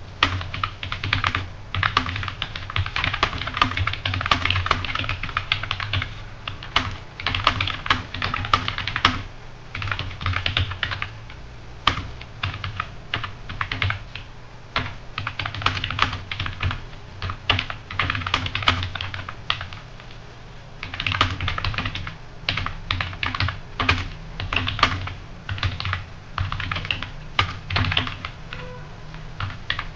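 Computer keyboard typing in fast runs of key clicks, broken by short pauses, as a typing-test passage is typed.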